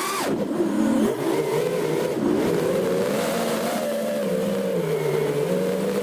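FPV quadcopter's electric motors whining, their pitch changing with throttle. The pitch drops sharply from a high burst just after the start, then holds a wavering hum that dips briefly about five seconds in.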